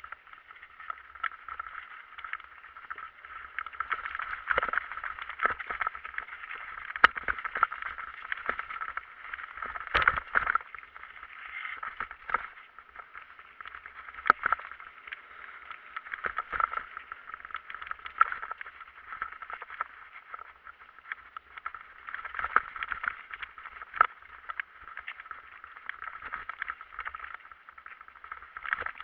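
Bicycle riding noise picked up by a camera on the bike: a steady rushing hiss with frequent irregular knocks and rattles from bumps in the ground.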